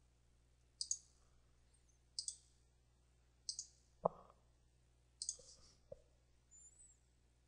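Computer mouse buttons clicking, four quick press-and-release double clicks spaced a second or so apart, with a single duller knock about four seconds in.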